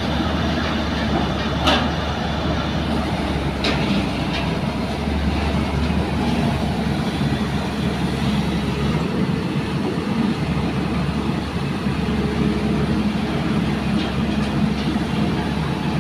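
Diesel engine of a JCB crawler excavator running steadily as it swings its arm, with two sharp knocks about two and four seconds in.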